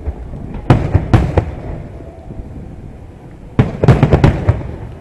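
Aerial firework shells bursting: sharp bangs with a low rumble trailing after each. Three come around one second in, then a quick string of about five near the end.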